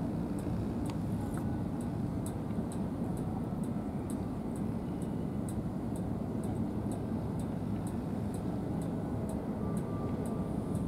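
Steady low outdoor rumble with faint high ticks repeating evenly, about two or three a second.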